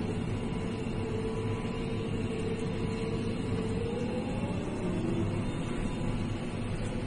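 A vehicle engine running steadily at idle: a low hum with a faint whine above it that wavers slightly in pitch.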